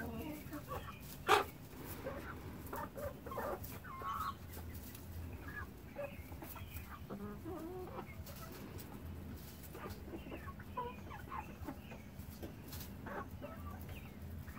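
A flock of chickens clucking softly and intermittently as they feed, with short calls scattered throughout. There is one sharp tap about a second in.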